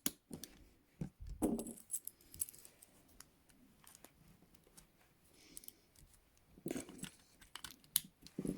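ASP Model 100 steel handcuffs being handled and closed, a scatter of light metallic clicks and rattles with a few duller knocks.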